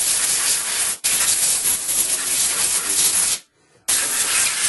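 A loud, steady rushing hiss, like a spray or a jet of air, in three spells: it breaks for an instant about a second in and stops for half a second near three and a half seconds before starting again.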